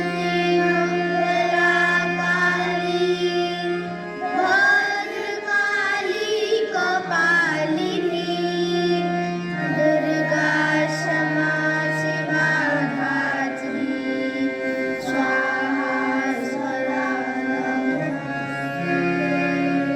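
A group of students singing an inspirational song together over long held instrumental chords.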